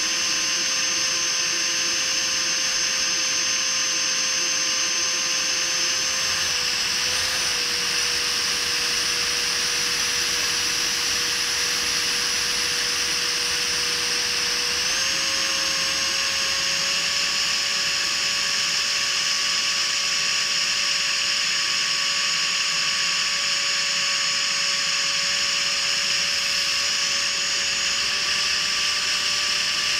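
Freewing 70 mm electric ducted fan with inrunner motor whining steadily, heard up close from the RC jet's own airframe, with a rush of air over it. Its pitch dips slightly about six seconds in and climbs again about fifteen seconds in as the fan speed changes.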